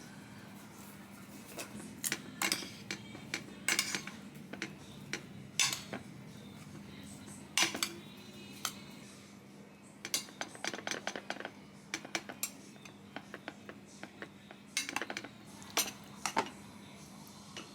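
Kitchen utensils clinking and tapping against a dish in irregular sharp knocks, some in quick clusters, over a steady low hum.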